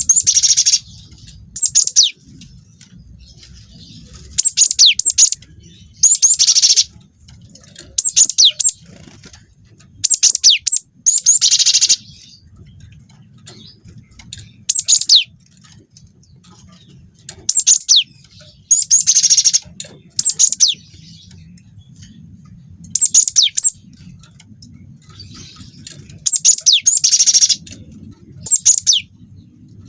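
Cinereous tit (gelatik batu) singing: loud phrases of sharp, high, sweeping notes, a phrase every one to three seconds, some running together into fast rolls.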